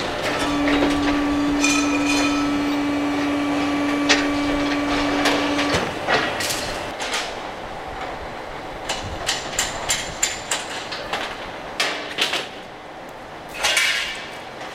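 A steady hum for the first six seconds or so. Then a string of irregular metal knocks and clanks from fairground ride assembly work, with a longer scraping noise near the end.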